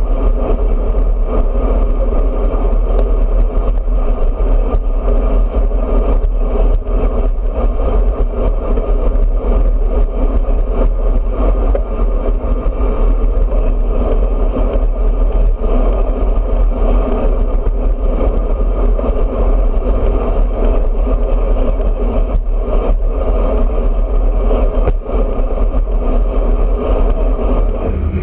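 Steady wind rush and road noise on a bike-mounted camera's microphone as a road bike rolls along at speed, with a deep rumble underneath.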